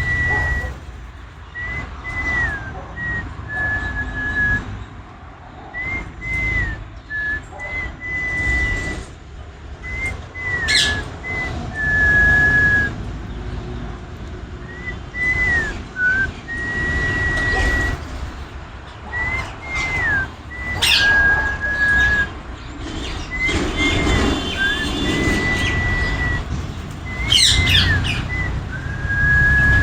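Parrots whistling a run of short held notes and glides, broken by a few sharp high chirps, over a low rumble.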